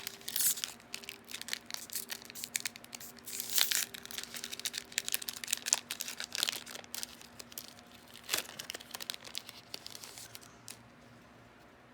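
A foil booster pack being torn open and its wrapper crinkled, a dense crackling rustle that dies down near the end.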